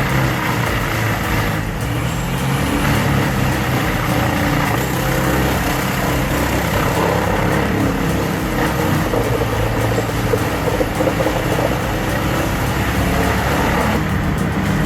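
A large engine on heavy machinery running steadily under load, its pitch shifting a little.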